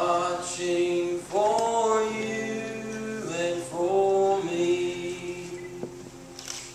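A solo voice singing a slow melody into a microphone, holding long notes over a soft, steady instrumental accompaniment.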